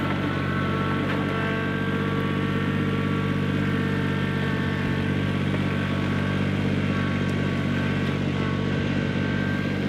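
Compact tractor engine running steadily under load while towing a wheeled chicken coop across grass.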